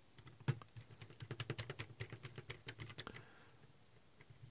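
Small precision screwdriver turning a screw into the plastic truck mount of a model freight car: a quick run of light clicks, one sharper near the start, stopping about three seconds in.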